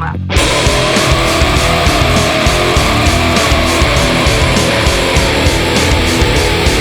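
Loud heavy rock music. About a third of a second in, the full band comes in hard over a quieter intro of bending guitar notes, and it plays on with a steady, driving beat.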